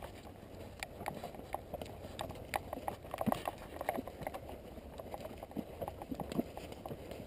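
Hoofbeats of ridden horses on a sandy dirt trail: irregular soft clops and sharp clicks, several a second.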